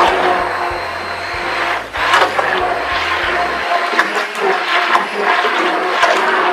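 Electric hand mixer running with a steady whine, its beaters churning guar-gum-thickened water in a bathtub.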